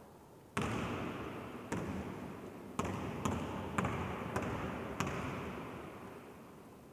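A basketball bouncing on an indoor court floor: about seven sharp bounces, spaced half a second to a second apart, each ringing on in the echo of a large empty sports hall.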